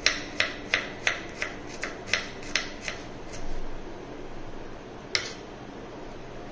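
Kitchen knife chopping shallots on a wooden cutting board: a quick run of about ten sharp knocks, roughly three a second, then a pause and one more chop.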